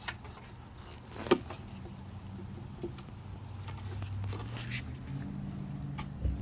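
Handling noises of plastic door lock and trim parts being fitted, with scattered light clicks and one sharp click about a second in, over a low steady hum.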